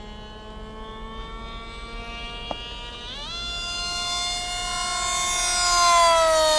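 Grayson Monster 2400 kV brushless electric motor and 7x5 propeller of a foamboard RC delta plane whining in flight. A steady whine at about quarter throttle rises sharply in pitch about three seconds in as the throttle is opened to full, then grows louder as the plane makes a low pass and drops in pitch as it goes by.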